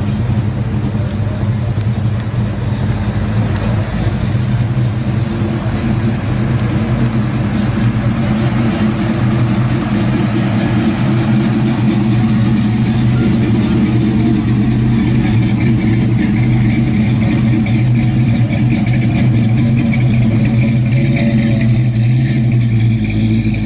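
Plymouth Duster's engine idling steadily through its dual exhaust, a constant low exhaust note with no revving.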